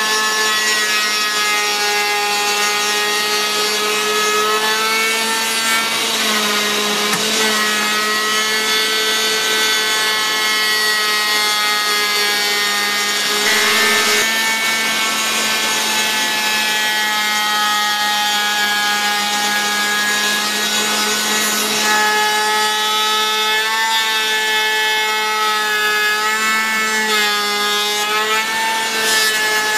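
CNC router spindle cutting a profile through wood: a steady whine over the rasp of the bit chewing the board, its pitch sagging briefly several times as the cutter takes more load.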